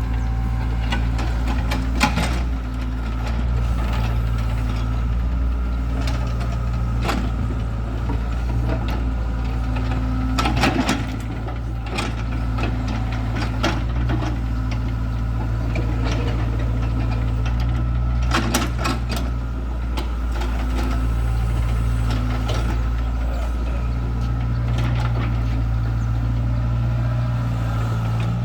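Excavator's diesel engine running steadily as it digs, with scattered sharp knocks and clanks over the hum.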